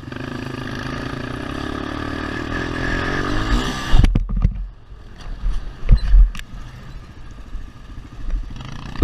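ATV engine running steadily under throttle, then about four seconds in loud thuds and clatter of a crash as the engine sound drops away, with more heavy knocks about two seconds later.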